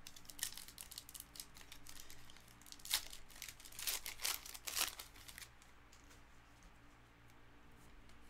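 Foil wrapper of a 2022 Panini Legacy Football card pack crinkling and tearing as it is ripped open by hand: a string of sharp crackles that stops about five and a half seconds in.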